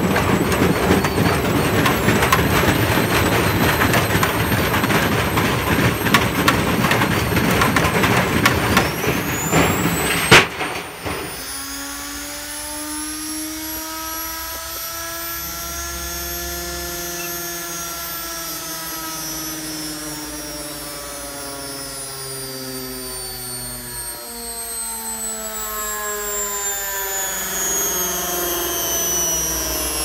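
Washing machine motor driving a Candy tumble dryer drum with a loud rattling clatter and a whine rising in pitch, then a single loud bang about ten seconds in. The clatter stops and a whine falls slowly in pitch as it spins down, the motor having burst off.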